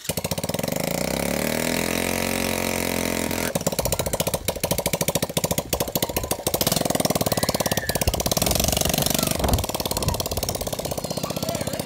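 The go-kart's 110cc quad engine, just fitted with a new carburetor, catches at once and runs. It revs up and back down over the first few seconds, then runs on steadily with a fast, even firing beat.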